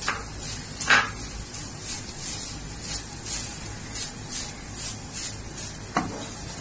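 A wooden spoon stirring freshly grated coconut as it roasts in ghee in a nonstick frying pan: a rhythmic swish and scrape, about two to three strokes a second, over a soft sizzle, with a couple of sharper knocks of the spoon on the pan, about a second in and near the end.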